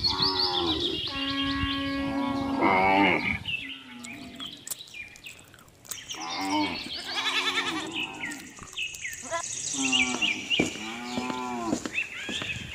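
Cattle mooing: several long, drawn-out moos, with small birds chirping faintly behind them.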